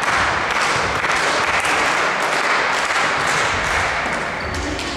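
A steady din of spectator noise in a sports hall, with sharp hits and thuds mixed in from the volleyball rally in play.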